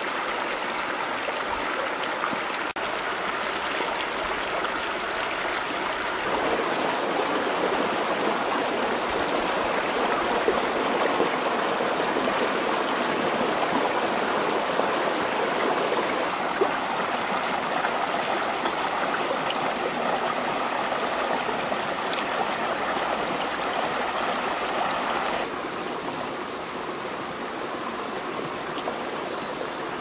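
Shallow stream rushing steadily over rocks. It gets louder about six seconds in and softer again near the end.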